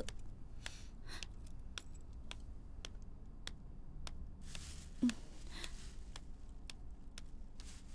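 Light clicking footsteps with brief rustling. A short louder squeak comes about five seconds in.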